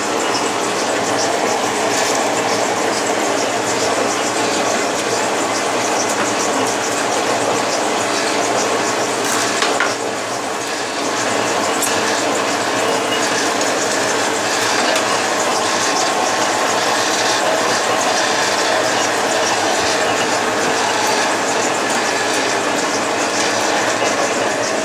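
Heater collar making machine running, its shaft and metal form spinning as the operator works the part, giving a steady mechanical rattle full of small clicks. The noise dips briefly about ten seconds in, then carries on.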